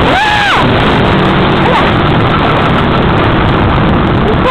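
Dirt bike engine running while riding, buried under heavy wind noise on a helmet-mounted microphone, with a brief rising-then-falling whine in the first half second.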